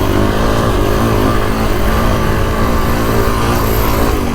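Kawasaki KX450X dirt bike's single-cylinder four-stroke engine running under way, the revs shifting a little near the start and then holding steady.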